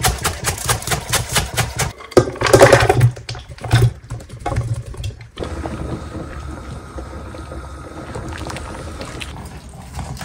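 A chef's knife chopping spring onions on a wooden board, in quick even strokes about four a second. A louder jumble of kitchen sounds follows, then a pot of chicken soup on a gas stove gives a steady hiss as a wooden spoon stirs it.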